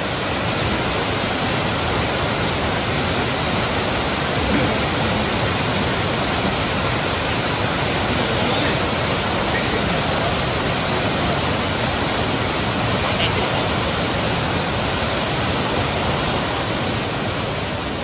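Waterfall plunging into a rock pool: a steady rush of falling water.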